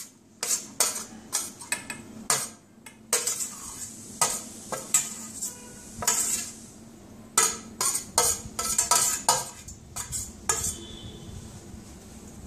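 Steel spoon scraping and tapping against a stainless-steel plate and bowl, a quick run of metallic clinks, as chopped vegetables and grated cheese are knocked off the plate into the bowl and stirred. The clinks thin out near the end.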